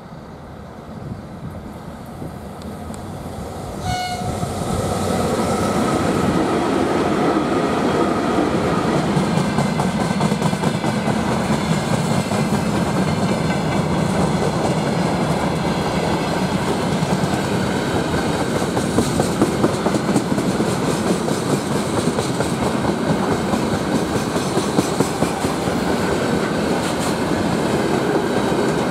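VL11M electric freight locomotive and its train approaching, growing louder over the first few seconds, with a brief horn toot about four seconds in, taken for a greeting from the crew. Then the steady rumble and clickety-clack of loaded boxcars and tank wagons rolling close past.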